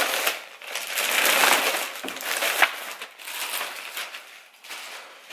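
Thin plastic shopping bag crinkling and rustling as it is handled, in a run of uneven bursts that are loudest in the first three seconds and grow fainter after.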